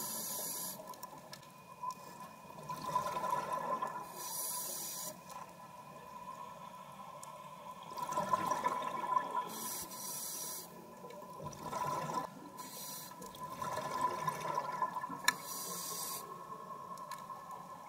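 Scuba breathing heard underwater: several breaths a few seconds apart, each a short hiss of inhalation through the regulator followed by a rush of bubbling exhalation. A faint steady high tone sits underneath.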